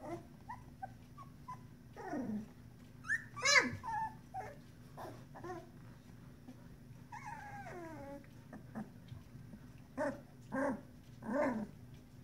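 16-day-old puppies whimpering and squealing: a falling whine, then a loud high squeal a few seconds in, a longer falling whine midway, and three short cries near the end.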